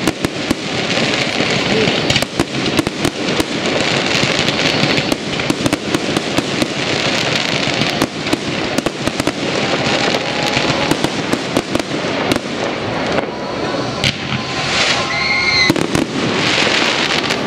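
Aerial fireworks display: a dense, continuous crackle of popping stars with shell bursts mixed in.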